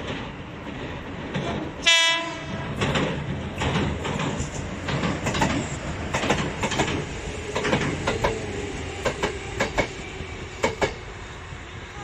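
Sanyo Electric Railway local electric train passing close by: a short horn blast about two seconds in, then the wheels clattering over rail joints in quick pairs, over a steady running rumble.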